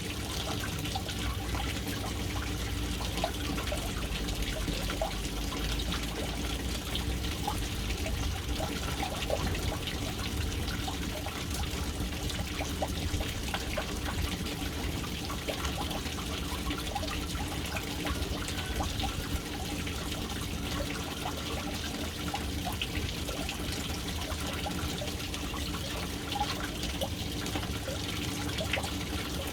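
Water falling steadily into a household water tank, a constant trickling and splashing that never lets up.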